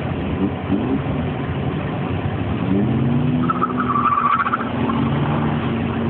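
Drift car engines revving in the distance. The pitch climbs twice, early on and again near the middle, then holds steady, with a short high squeal a little past halfway.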